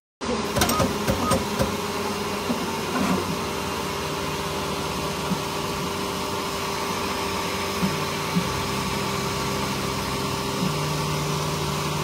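Bambu Lab X1 Carbon 3D printer running a print: a steady whir of its fans, with stepper-motor tones that jump to new pitches a few times, around two-thirds of the way through and again near the end.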